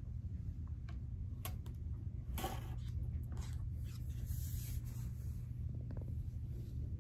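Steady low room hum with a few light clicks and soft rustling or scraping handling noises in the middle.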